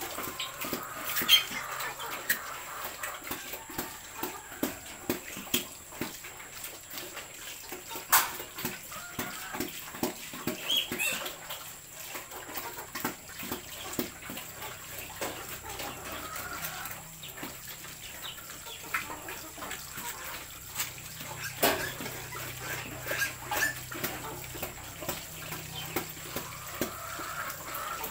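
A sow eating from the metal feeder of a farrowing crate: irregular chewing, slurping and clanking, with a few sharper knocks. Short high piglet squeals come in now and then.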